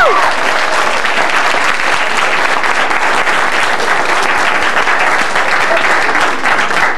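Audience applauding steadily, thinning out near the end. At the very start the tail of a held musical note slides down in pitch and stops.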